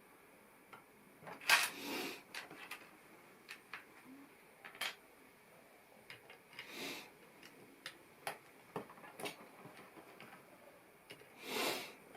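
Plastic LEGO pieces being handled and snapped together: scattered small clicks and clacks, with three short rustling bursts of pieces being sorted or moved.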